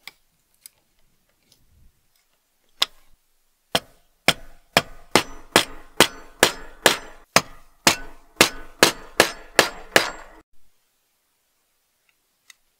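Hammer striking a steel punch to set brass rivets in a sheet-metal lantern plate. It starts with a couple of single blows, then a steady run of about fourteen ringing strikes, roughly two a second, which stops suddenly.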